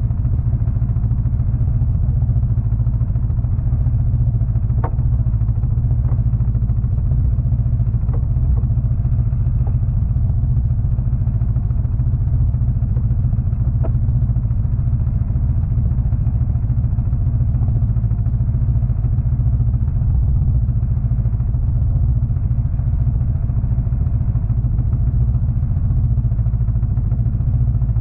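Snowmobile engine running steadily, a constant low drone with no change in speed, and a few faint ticks in the first half.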